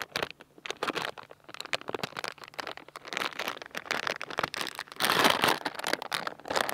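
Plastic packaging crinkling and rustling in irregular bursts as a rubber mower deck belt is unwrapped, loudest about five seconds in.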